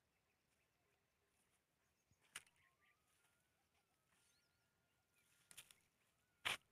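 Near silence broken by three short sharp clicks, about two seconds in, about five and a half seconds in and the loudest near the end, with a faint thin steady whistle between them.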